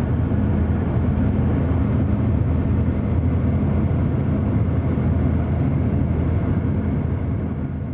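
Steady road and wind drone of a car travelling at highway speed, heard from inside the cabin, with a low hum running underneath.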